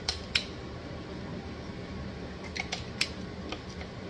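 A utensil scraping and clicking against a blender container while thick sunflower seed butter is scooped out into a jar through a funnel. There are a couple of sharp clicks just after the start and a cluster of them about two and a half to three and a half seconds in, over a steady low hum.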